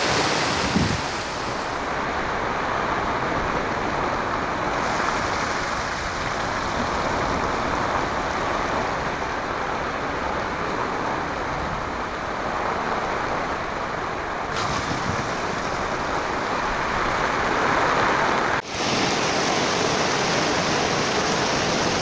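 Steady rushing roar of a waterfall; its tone changes abruptly a few times.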